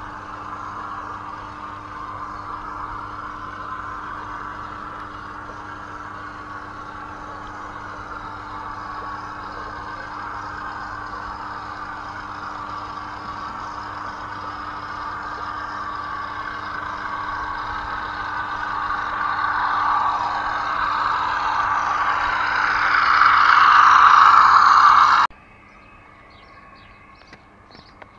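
Steady mechanical running noise, growing gradually louder over about twenty seconds and cutting off abruptly near the end, after which birds chirp faintly.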